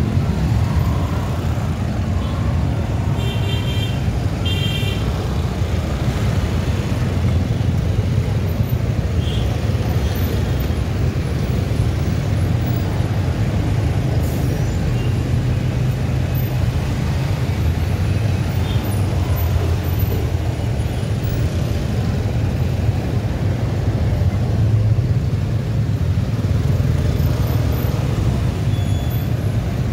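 Steady low road rumble of a motorcycle ride through city traffic. A vehicle horn beeps in two short bursts about three to five seconds in.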